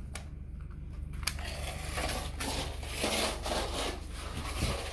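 Gritty scraping and crunching of a plastic toy being moved against a rough concrete surface, with a sharp click about a second in, over a steady low hum.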